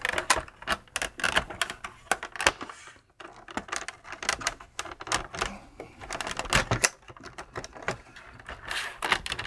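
Plastic case parts of a Tandy TRS-80 Model 200 portable computer being handled and pressed into place: a run of irregular sharp clicks and snaps, with a short pause about three seconds in.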